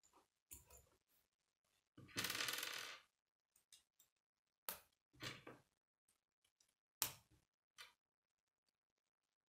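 K'nex plastic rods and connectors clicking and knocking as they are snapped together by hand, a few separate clicks spread over several seconds. About two seconds in, a second-long rattle of loose plastic pieces, the loudest sound.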